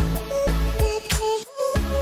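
Background music with a steady beat and a melody line; it dips briefly about a second and a half in, then picks up again.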